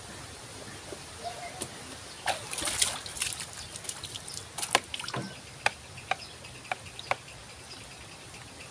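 Water sloshing and splashing as a plastic dipper is worked in a container of bathing water, in two short bouts in the first half, followed by a few sharp clicks about two-thirds of the way through.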